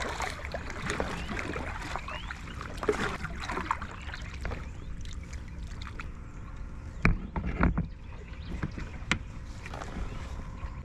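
Kayak paddle strokes swishing and splashing in river water, then a few loud knocks about seven seconds in and a sharp click a couple of seconds later, as of gear or the paddle striking the kayak.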